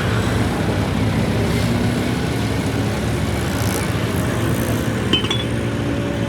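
A vehicle engine running steadily, with a short click about five seconds in.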